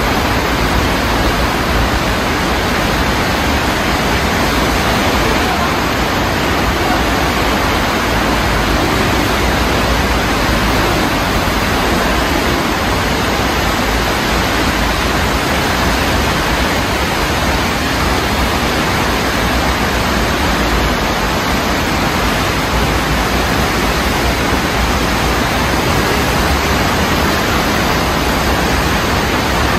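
A small urban stream in flood after heavy rain, its muddy water rushing high and fast. It makes a loud, steady, unbroken rush.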